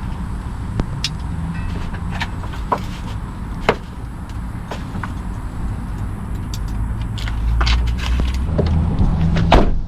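Car engine idling with the air conditioning running, heard inside the cabin. Scattered small clicks and rattles come from a dog's leash being clipped on and handled, with a louder click near the end.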